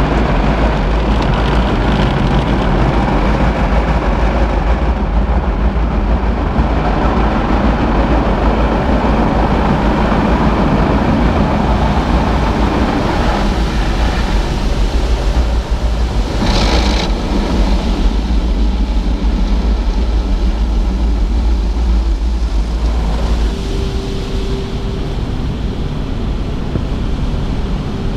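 Automatic car wash heard from inside the car's cabin: water jets and rotating brushes working over the body make a steady, loud rush with a deep rumble. A brief sharper hiss comes a little past the middle, and the rumble eases about three-quarters of the way through, followed by a short steady whine.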